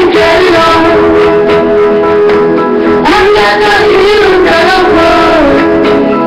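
Loud pop song with instrumental backing, and a boy's voice singing along.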